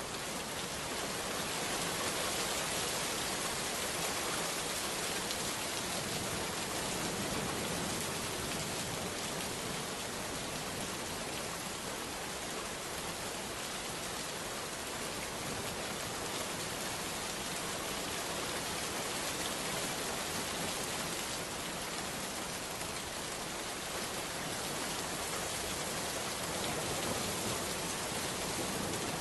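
Steady rain, a continuous even hiss that holds the same level throughout.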